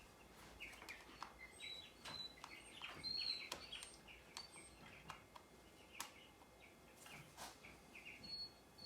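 Faint, repeated bird chirps and short high whistles over a quiet background, with a few light scattered clicks.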